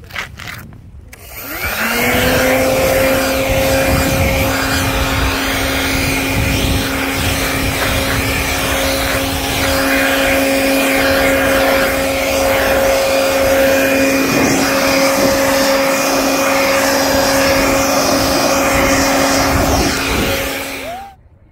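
Craftsman leaf blower starting up with a rising whine about two seconds in, running at a steady pitch, then shutting off and winding down just before the end.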